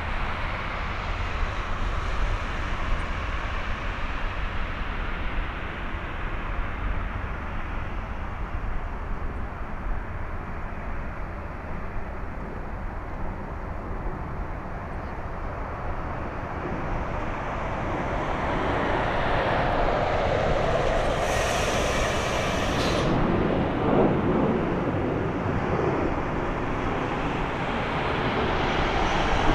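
Airbus A320 jet airliner on landing approach, its engine noise swelling as it draws near and is loudest about two-thirds through, with a brief high whine in the middle, over a steady low rumble.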